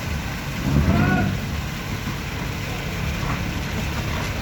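Squid-fishing boat's engine running steadily with a low rumble, and a short raised call from a voice about a second in.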